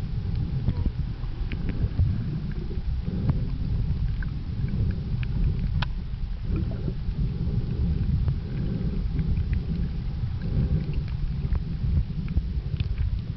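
Underwater sound picked up by a camera in the sea: a steady muffled low rumble of moving water, with scattered sharp clicks.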